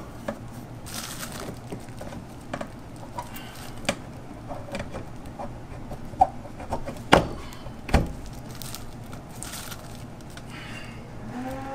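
Handling noises from pipe and fittings being worked in a wall cavity: scattered small clicks, taps and rustling, with two sharper knocks about seven and eight seconds in, the second a dull thump.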